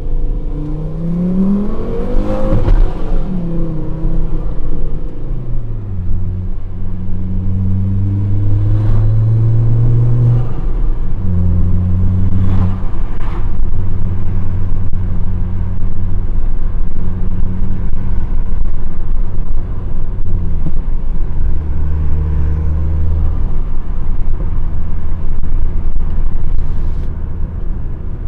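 Volvo S60 2.0T turbocharged engine through a straight-piped exhaust with two hi-flow mufflers and no catalytic converter, revving up in the first couple of seconds. A short burst of turbo flutter follows as the throttle is lifted; the diverter valve is deleted and a pod filter is fitted. The engine then runs at steady speeds that step up and down through the gears, with a few more brief bursts.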